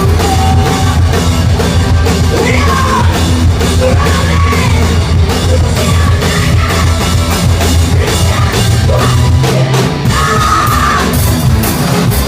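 A rock band playing loud and heavy, with drums and a singer's yelled, sliding vocal lines over the band; the music cuts off suddenly at the end.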